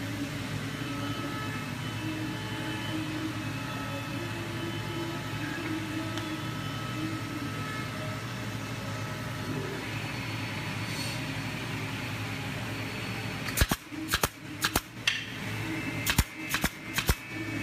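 Pneumatic nail gun firing a quick series of sharp shots, about eight in three and a half seconds, fastening the joints of a wooden cabinet-door frame. Before the shots only a steady mechanical hum is heard.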